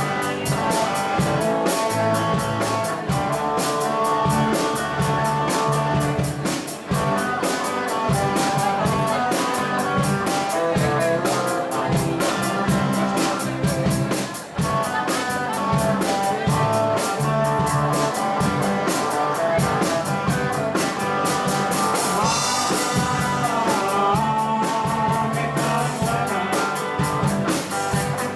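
Live rock band playing: electric guitar over drum kit, with some singing.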